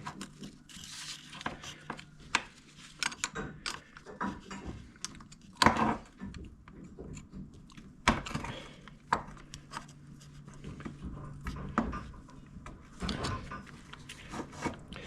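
Scattered metallic clicks, clinks and knocks of brake caliper parts and tools being handled while the brake pads are changed, over a faint steady low hum. The loudest knocks fall about a third and halfway through.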